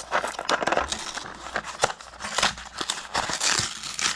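A cardboard Lego minifigure box being torn open and the paper packet inside being rustled and crinkled by hand, a quick run of crackles and snaps.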